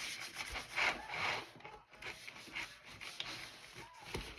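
Rubbing and scrubbing strokes on a computer keyboard as it is cleaned, loudest about a second in, with a short knock near the end.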